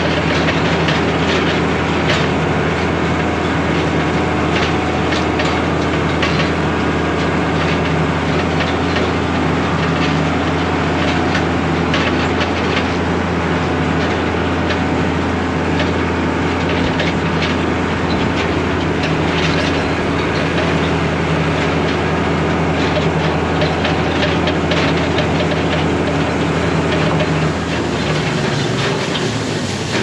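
Tractor engine running steadily while towing a J&M gravity wagon over gravel, with the wagon's steel box and running gear rattling and clanking the whole way. The engine note drops near the end.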